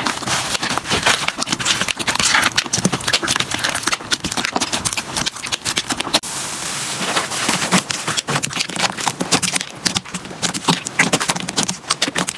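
Slime being squeezed and pressed by hand close to the microphone, giving a dense, irregular run of clicks and crackly pops. The texture changes about six seconds in.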